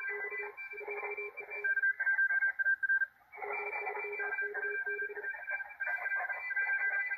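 Morse code (CW) pileup on the 40-metre amateur band from a Malachite DSP SDR receiver: several stations keying at once on close frequencies, their tones at different pitches overlapping. All the signals drop out for a moment about three seconds in.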